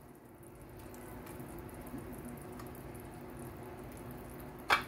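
A pot of broth with mushrooms and peas simmering quietly on the stove, under a steady low hum. One sharp clink comes near the end.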